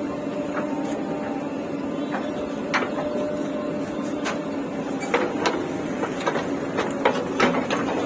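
JCB 3DX backhoe loader's diesel engine running steadily under hydraulic load as the backhoe arm swings a bucket of soil over a tractor trolley. In the second half comes a quick run of sharp knocks and clatter as the bucket tips and the earth drops into the trolley.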